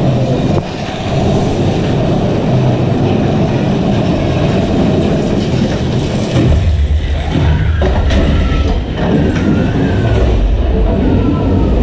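Big Thunder Mountain Railroad mine-train roller coaster running on its track: a loud, steady rumble and clatter of the train's wheels. The rumble grows deeper about six and a half seconds in.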